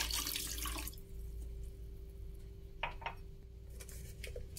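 Water poured from a glass into a small saucepan holding two discs of palm sugar, splashing for about the first second. A single light tap follows near the middle.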